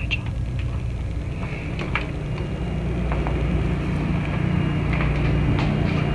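Steady low mechanical hum of the cruise ship's machinery, with a few faint clicks and knocks.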